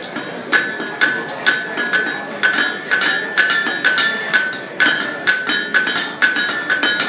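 Blacksmith's hand hammer striking hot steel on an anvil in a steady rhythm, about two to three blows a second, the anvil ringing with a clear tone after each blow.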